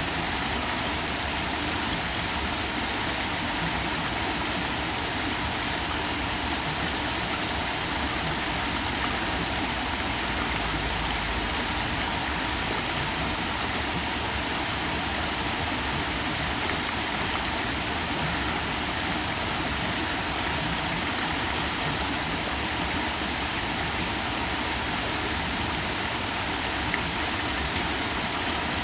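Small waterfall pouring over a rock ledge into a shallow stream pool: a steady, unbroken rush of falling and splashing water.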